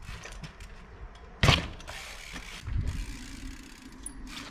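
Trials bike on a concrete ledge: its freewheel hub ratchets and clicks, with a sharp loud impact of the bike landing about one and a half seconds in and a duller thud about a second later.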